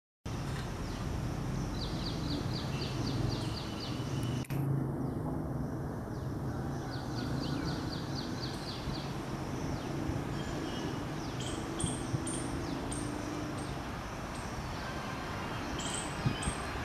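Birds calling: one repeats a quick run of high, evenly spaced notes twice, and others chirp higher from about two-thirds of the way through. A steady low rumble runs beneath them.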